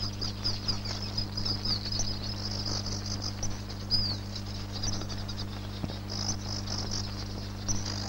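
Many small birds chirping rapidly in high, short, overlapping calls, with one longer curved note about four seconds in, over a steady low hum.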